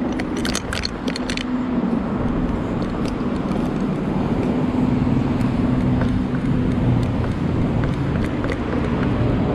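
Steady road-traffic rumble with a low engine hum. There is a quick run of sharp clicks in the first second and a half.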